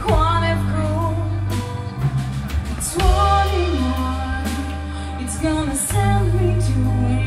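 Live band playing a slow song with a female lead vocal, backed by electric guitars, bass guitar, drums and keyboards; the bass holds long low notes that change a few times under the sung melody.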